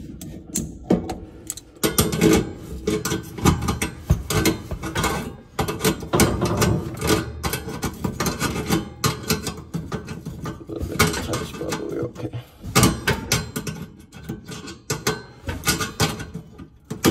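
Tongue-and-groove pliers clicking, scraping and rattling against the metal bolts and bracket of a new oven igniter as they are tightened, in a busy run of small metallic knocks.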